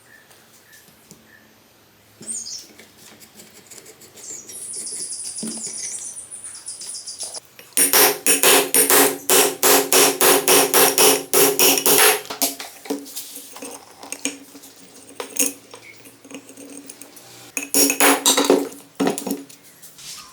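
Rapid, regular metal-on-metal striking with a ringing pitch, about four blows a second for some four seconds, with a few scattered strikes after and a second short run near the end.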